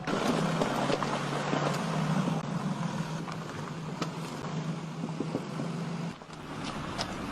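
A motor vehicle running, a steady engine hum under road noise, with a brief dip about six seconds in.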